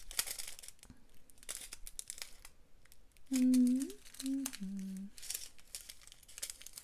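Small plastic bags of diamond painting drills crinkling and rustling in the hands in short bouts. About three seconds in, a woman hums three short notes, the last one lower.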